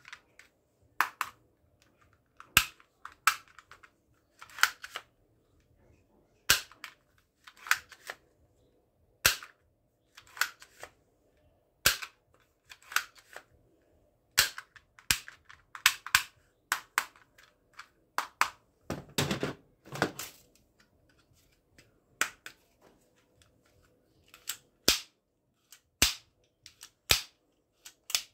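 Plastic toy guns clicking and snapping as they are worked by hand, mostly a toy pump-action shotgun. There is a string of sharp single clicks a second or two apart, with a quick run of them about two-thirds of the way through.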